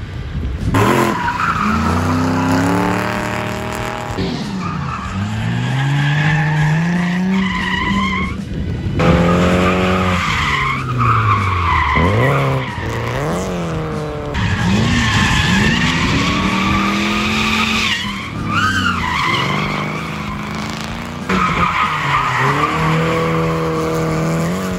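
Drift cars sliding, their engines revving up and down over and over while the tyres squeal in long, steady screeches. The sound changes abruptly several times, as if separate drift passes were cut together.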